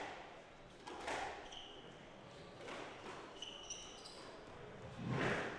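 Squash ball struck by rackets and hitting the court walls during a rally, each hit echoing in the hall, about one every second or so, the loudest near the end. Short squeaks of court shoes on the wooden floor come between the hits.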